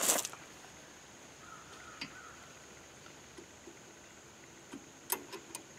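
A short hissing burst right at the start, then a few light clicks near the end as hands work the brake caliper's bleeder valve, over a steady high insect drone.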